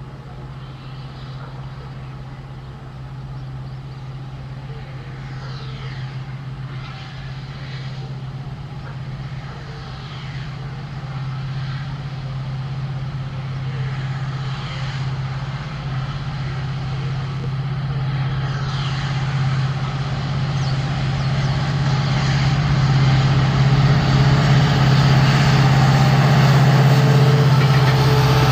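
EMD WDP-4 diesel locomotive's two-stroke engine working hard as it hauls an express under acceleration, a steady low drone. It grows steadily louder as the locomotive approaches and is loudest as it passes close by near the end.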